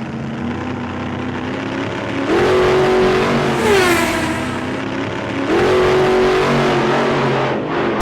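Car engine revving, probably a sound effect: a steady run, then the pitch climbs sharply about two seconds in, falls back near four seconds, and climbs again about five and a half seconds in.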